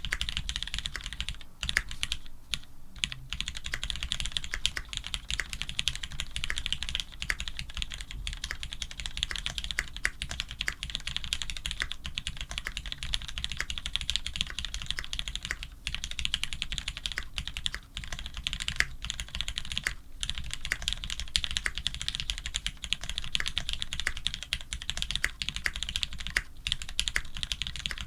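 Fast continuous typing on a Monstargear XO V3 custom mechanical keyboard with lubed Cherry Retooled Black linear switches, an FR4 plate and GMK keycaps: a dense run of keystroke clacks broken by a few brief pauses.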